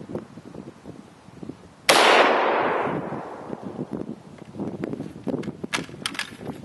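A single shot from a 1939 Japanese Type 99 bolt-action rifle in 7.7 mm Arisaka: one sharp crack about two seconds in, with a long echo fading over about a second and a half. A few short sharp clicks follow near the end.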